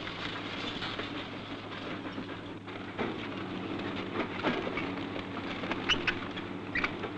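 A heavy demolition machine's engine running steadily, with scattered knocks and clatter of debris and two short high squeaks near the end.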